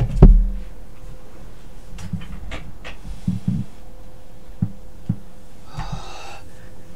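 A heavy thump about a quarter second in. Then scattered light knocks and clicks of objects being picked up and handled, and a heavy breath near the end.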